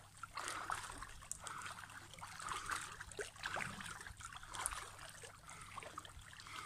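Pool water sloshing and splashing as arms are swept rapidly back and forth through it: a continual, irregular run of small splashes.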